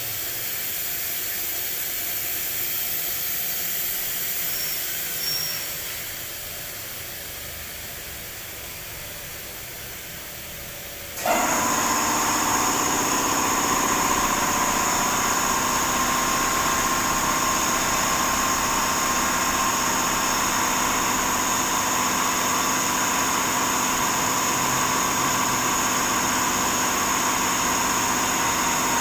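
A hiss that slowly fades, then, about eleven seconds in, a CNC milling machine's steady running sound cuts in abruptly, a hum with a high whine, and runs on evenly.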